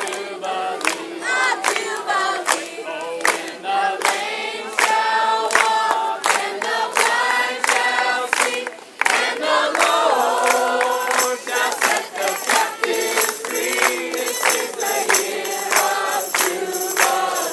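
A choir or group of voices singing a worship song with instrumental backing and a regular beat.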